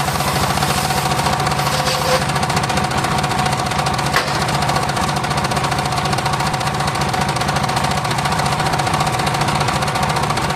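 Engine of a homemade circular-saw rig running steadily, a fast even beat under a steady hum.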